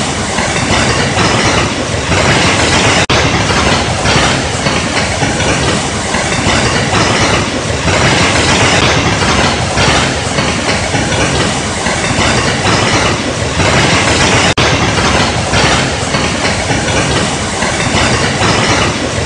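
Waterfall in full flood: a muddy torrent pouring over rock and surging through the channel, making a loud, steady rushing noise.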